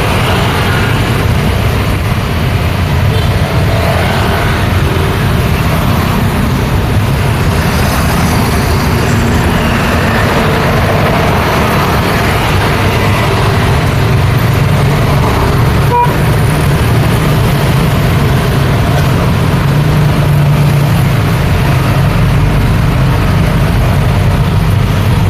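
Busy road traffic: a steady, loud mix of truck, bus, car and motorcycle engines and tyres passing close by.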